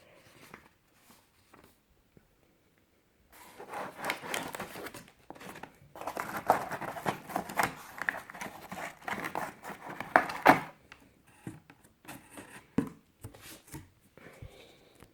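Packaging being handled during unboxing: paper and plastic wrapping rustling, crinkling and tearing in two long stretches a few seconds in, then scattered clicks and rustles of handling.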